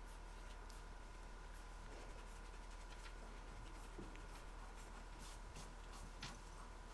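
Faint scratching of pencils writing on paper, in short scattered strokes, over a steady low hum.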